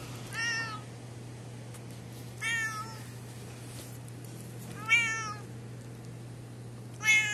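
Domestic cat meowing four times, short calls about two seconds apart, the last two louder.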